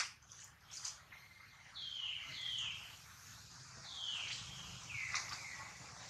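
A bird calling: about five high, whistled notes, each sliding downward, in two groups. A few soft clicks or rustles come in the first second.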